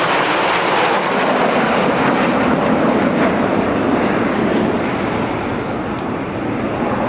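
Jet noise from a formation of seven BAE Hawk T1 jets with Adour turbofan engines flying a display overhead: a loud, steady rushing noise that sinks a little lower in pitch around the middle and eases slightly in level after about five seconds.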